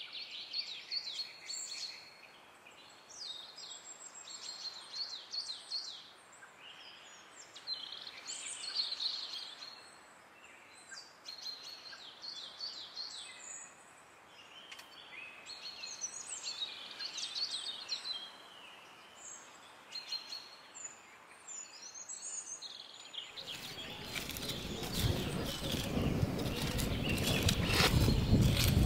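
Small birds chirping and trilling in short repeated phrases over a faint outdoor hiss. Near the end a wooden stick starts scraping and digging in loose, dry soil, a scratchy noise that grows louder.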